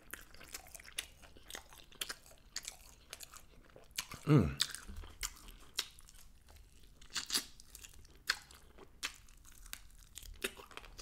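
Close-up chewing and biting of chicken wings: scattered crisp crunches and wet mouth clicks. About four seconds in there is a short vocal murmur from the eater that falls in pitch.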